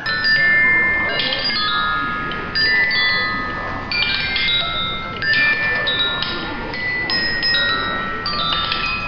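Bright metal chimes ringing: clusters of several high tones struck together about every second and a half, each note ringing on.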